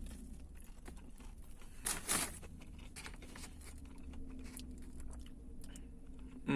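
Someone chewing a bite of a crispy fried chicken sandwich: small crunches and mouth clicks, with one louder crunch about two seconds in, over a steady low hum.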